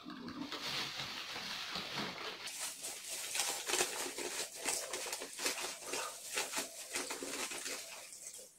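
Dense crackling and rustling from hands working at a plate of instant noodles, with rapid fine clicks that thicken about two and a half seconds in and die down near the end.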